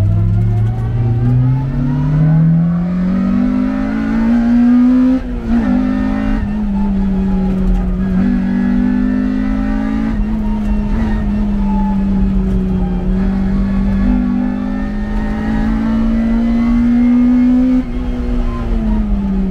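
A vehicle engine revving up over the first five seconds, then running at a steady pitch with small rises and dips, and easing off near the end.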